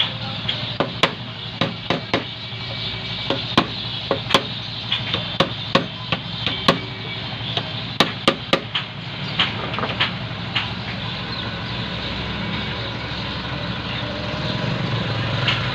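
Hand tools knocking and tapping irregularly on the metal parts of a sandwich toaster while its replacement heating element is fitted, with around twenty sharp knocks over the first ten seconds and fewer after. A steady low hum runs underneath.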